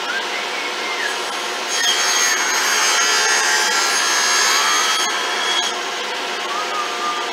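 Table saw running, its blade cutting through a wood board for a few seconds from about two seconds in, louder and with a high whine during the cut, then back to the steady free-running sound.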